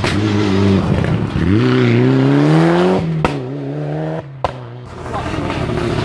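Rally car engine pulling out of a hairpin: the revs dip briefly, then climb steadily through the gear. Two sharp cracks follow about three and four and a half seconds in. Near the end an engine climbs in revs again.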